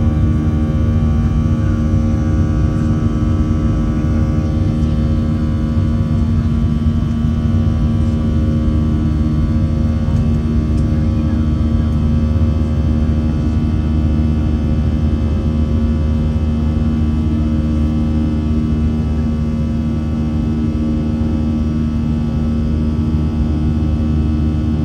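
Steady in-cabin drone of a Boeing 737-700's CFM56-7B jet engines and airflow: a loud, even rush with a hum of several fixed tones that holds unchanged throughout.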